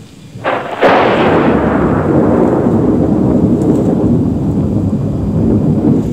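Thunderclap: a sharp crack about half a second in, a second crack just after, then a long rolling rumble that slowly dies away.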